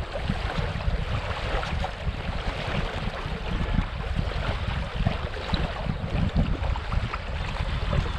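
Wind buffeting the microphone in uneven gusts, over a steady rushing noise.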